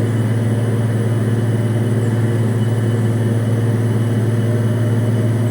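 Large engine running steadily: a deep, even machinery hum with no change in pitch.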